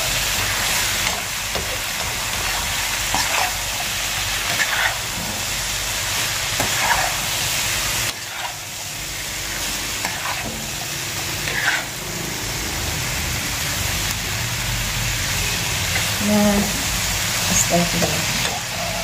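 Stir-frying green beans and chicken skin in a nonstick wok: a steady sizzle with repeated scraping and tossing strokes of the spatula every second or two.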